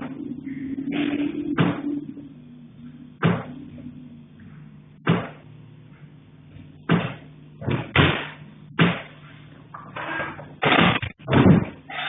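Knocking and banging in an attic: about ten sharp thuds at uneven intervals, several coming in quick succession near the end, over a faint steady low hum.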